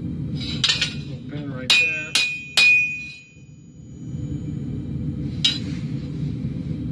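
Hand hammer striking red-hot khukuri blade steel on an anvil. There are several blows in the first three seconds; the three loudest, around two seconds in, ring on briefly. One more blow comes near the end. A steady low rumble sits underneath.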